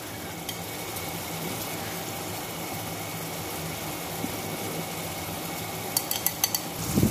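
Minced beef and tomatoes simmering in a frying pan: a steady, gentle sizzle. Near the end a few light clicks of a utensil against the pan, then a low knock.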